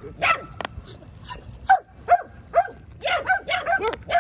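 A dog whining in short, high yelps that fall in pitch, about eight of them in quick succession.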